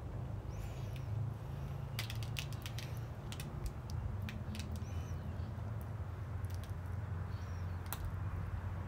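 Wet, sticky ticks and clicks of liquid epoxy being smoothed by a gloved hand and dripping off the gourd, scattered at irregular intervals over a steady low hum from the rotisserie turning the gourd.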